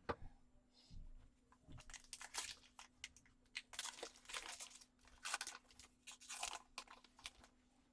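Foil wrapper of a trading-card pack being torn open and crinkled by hand, in a run of faint short rustles and crinkles.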